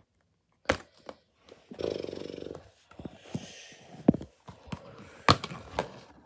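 Scattered knocks and handling noises on a wooden surface, with a short buzzing rattle about two seconds in.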